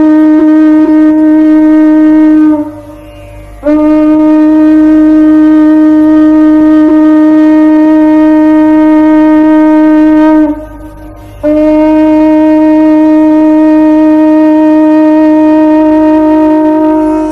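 Conch shell (shankha) blown in long, steady blasts of one held pitch. It breaks off briefly about two and a half seconds in and again about ten and a half seconds in.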